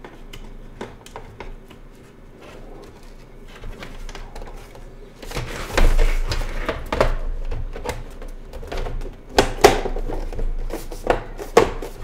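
Handling of a Lenovo IdeaCentre all-in-one PC and its back cover as the cover is lined up for refitting: faint small clicks at first, then from about halfway louder knocks, rubs and several sharp clicks of the cover against the chassis.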